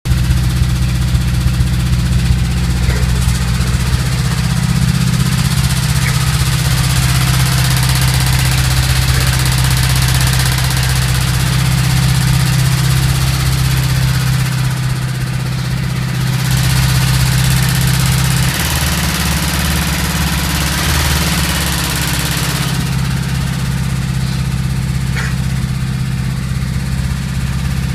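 Volkswagen Golf Mk2 1.3 four-cylinder petrol engine running with a knock from worn crankshaft bearing shells. The engine's note shifts a few times.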